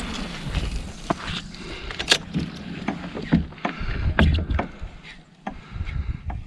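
Plastic sit-on-top kayak on the water, with a dozen or so irregular sharp clicks and knocks of gear against the hull over a steady low rumble.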